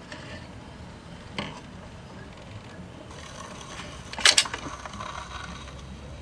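Record changer mechanism of a vintage Magnavox console turntable working, with scattered mechanical clicks and a louder cluster of clicks a little after four seconds in, as the tone arm is moved out to the record's edge.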